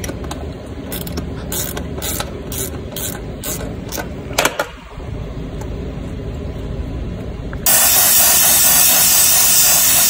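Ratchet wrench clicking in a steady run, two or three clicks a second, while backing out a compressor's half-inch mounting bolts. About three-quarters of the way in, a loud steady hiss cuts in abruptly: a brazing torch burning.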